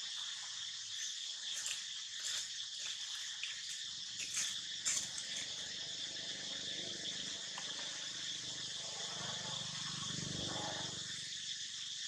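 Steady, high insect chorus, with two sharp ticks about four and five seconds in and a low sound that swells and fades near the end.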